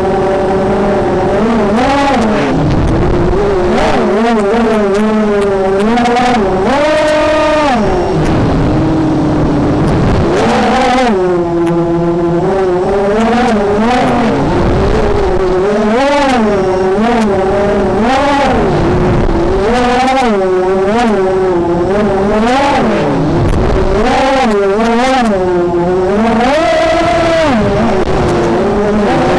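Racing quadcopter's brushless motors (Cobra 2206, 2100 kV) spinning HQ 5x4.5 bullnose props, heard from the onboard camera: a loud, steady whine whose pitch swoops up and down again and again with the throttle.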